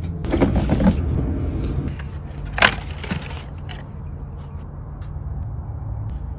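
Tools and parts being handled during an oil change: scraping and rustling for about two seconds, then one sharp metallic clank a little before the middle, over a steady low hum.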